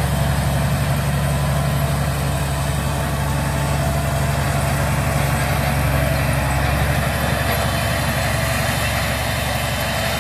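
Fendt 1050 Vario tractor's diesel engine running steadily under load, pulling a Massey Ferguson Momentum planter at work, with a steady low hum and an even mechanical noise above it.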